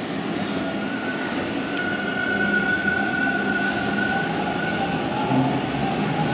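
Toronto subway train, a Bombardier T1 car, accelerating out of a station: its traction motors whine with a slowly rising tone over the rumble of the wheels, growing gradually louder.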